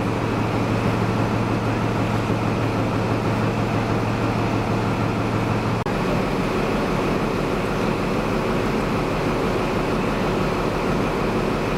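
An HST (InterCity 125) passenger train running, with steady train noise throughout. About six seconds in there is a momentary break, after which the low hum drops away.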